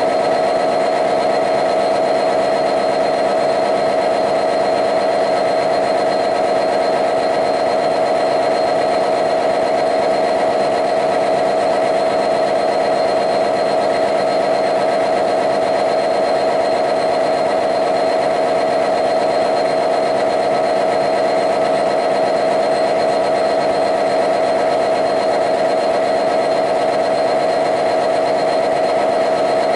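EMD 710-series V12 two-stroke diesel engine of a Class 66 locomotive idling, heard from inside the engine room: a loud, steady drone that does not change.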